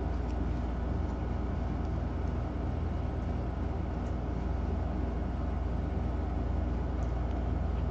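Steady low mechanical hum at a constant level, with a few faint ticks.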